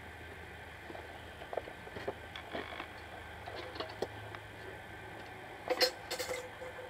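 Scattered light knocks and clinks of metal tools and parts being handled at a workbench. Near the end comes a louder metallic clatter with a short ring, as the workbench's metal cover and chain are moved. A faint low hum runs underneath.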